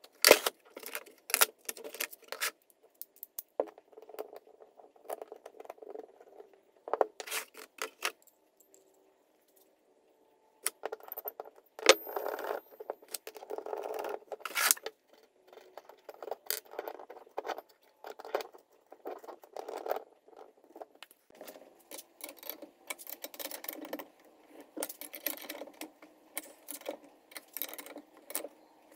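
Steel parts of a bearing separator and puller kit clinking and knocking as they are handled and fitted around a moped crankshaft to pull its bearings. The sound is a scatter of short metallic clicks and taps, with a quiet pause of a couple of seconds about a third of the way in.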